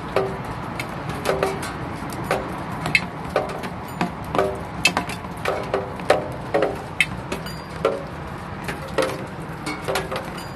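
Raindrops striking hard, resonant objects: irregular knocks and plinks, several a second, many with a short pitched ring, over a steady low hiss.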